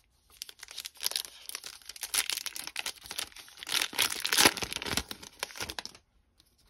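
Paper wrapper of a Topps Heritage baseball card pack being torn open and crumpled: a dense crinkling crackle, loudest about four seconds in, that stops about six seconds in.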